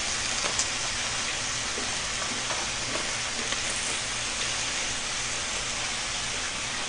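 Samgyeopsal pork belly, kimchi and grilling cheese sizzling on a hot griddle, a steady hiss, with a few light clicks of metal tongs.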